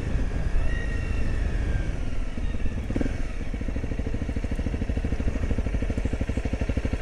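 Adventure motorcycle's engine running at low revs, with a single clunk about three seconds in; after that the engine settles into an even, regular idle beat.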